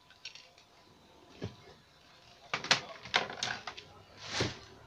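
A replacement CRT TV circuit board and its wiring being handled and set down on a workbench: a single knock, then a cluster of clattering knocks about two and a half to three and a half seconds in, and a brief scraping rustle near the end.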